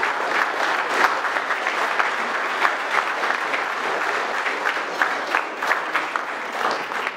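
A small crowd applauding: steady clapping with sharp single claps standing out.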